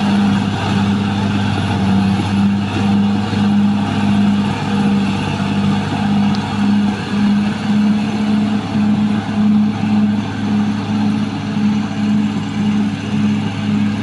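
Caterpillar D6R XL crawler bulldozer's diesel engine running steadily as the machine tracks along a muddy cut, with a low note that pulses about twice a second.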